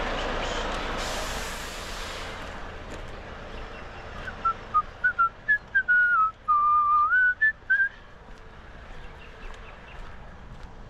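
A person whistling a short tune close by: a run of quick notes, then a longer held note that slides up at the end.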